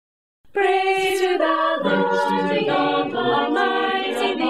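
Mixed choir of teenage students, boys and girls, singing in harmony. All the voices come in together about half a second in, and the chords change every half second or so.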